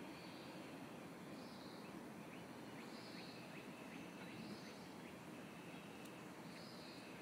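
Faint high animal chirps repeating about every second and a half over a low steady hiss, with a few quick faint ticks in the middle.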